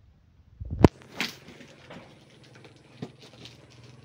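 Box cutter slitting the black plastic wrap and tape on a package, with crackling and scattered clicks, after a single sharp knock a little under a second in.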